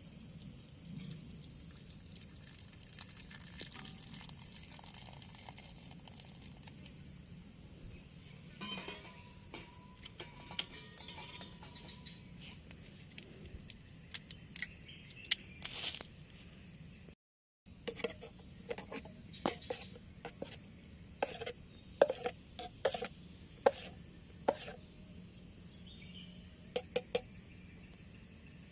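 Steady high-pitched chorus of forest insects, with scattered short clicks and knocks over the second half. The sound cuts out briefly about seventeen seconds in.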